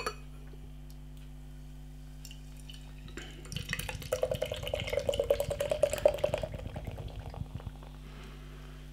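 Beer poured from a can into a tilted glass: a fast run of glugs and splashes that starts about three seconds in, lasts around four and a half seconds and stops shortly before the end.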